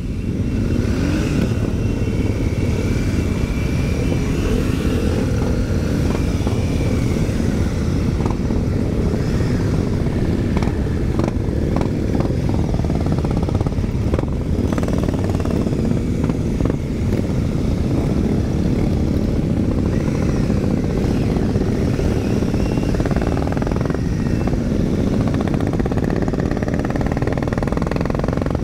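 A large pack of Royal Enfield motorcycles riding together, among them the rider's own Super Meteor 650 parallel-twin engine, heard as a steady, dense, loud rumble of engines.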